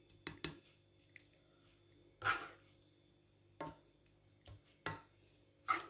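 Thick minced-meat sauce being spooned onto lasagna sheets in a baking dish: a few short, irregular wet plops and squishes with light taps of the spoon against the dish.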